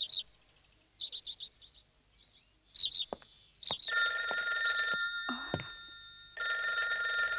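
A few short, high bird chirps, then an old telephone's bell ringing: one long ring from about four seconds in, breaking off briefly and starting again near the end.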